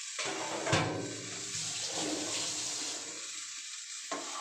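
Hot oil sizzling steadily in a non-stick kadai of fried fish pieces and vegetables as they are stirred, with a brief clatter about a second in.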